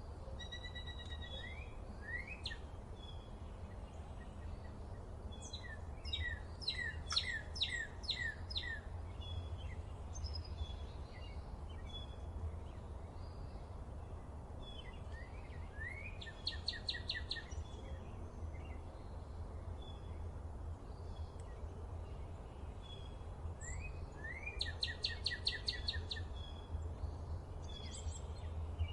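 Outdoor birdsong: one bird sings a rapid run of repeated notes three times, roughly every nine seconds, while other birds give scattered short chirps over a steady low rumble.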